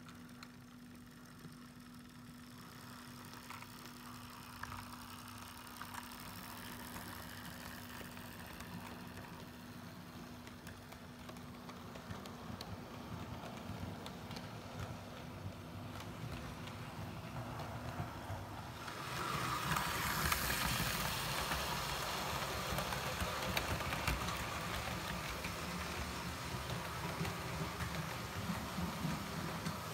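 Hornby OO gauge model train running on sectional track: a steady electric motor hum with the clicking and rattling of wheels on the rails. It grows louder as the train nears, stepping up to a louder clatter about two-thirds of the way through.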